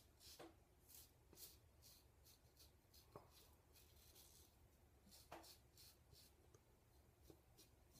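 Faint scratching of a Gillette Old Type open-comb safety razor cutting stubble on the upper lip: a series of short scrapes, about one or two a second.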